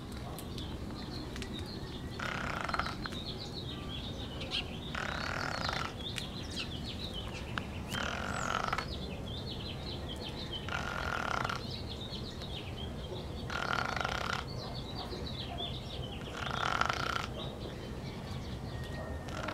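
A dog snoring in deep sleep, one rasping snore about every three seconds, each lasting under a second.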